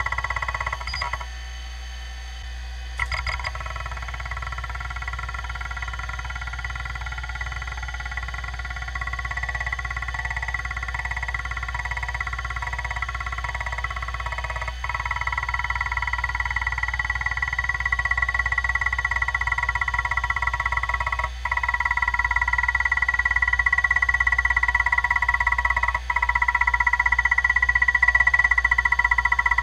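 Damaged Kalok KL-320 20 MB MFM hard drive running on three of its heads during a surface scan that is finding bad sectors: a steady high whine with the heads stepping along, track by track. The sound breaks off briefly three times in the second half and grows slowly louder.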